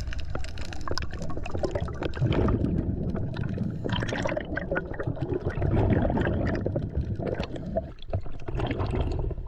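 Water gurgling and sloshing around a diver's underwater camera as it rises along a rope and breaks the surface, with many small bubbly clicks.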